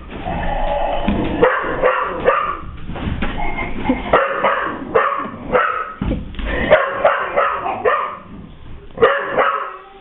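Boxer dog barking and yipping while an animal-noise toy plays its sounds, with short knocks from the toy being knocked about.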